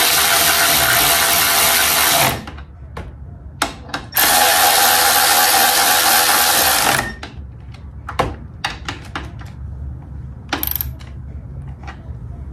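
A hand-held power tool runs in two bursts of about three seconds each, then short clicks and knocks of parts being handled.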